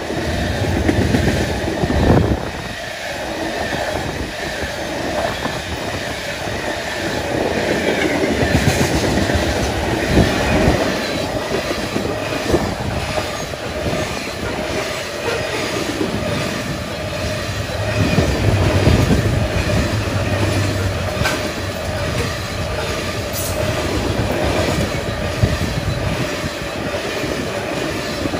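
Freight train of ethanol tank cars rolling past at track side: a steady rumble of wheels on rail, with irregular knocks as the wheels cross rail joints and a faint steady wheel squeal.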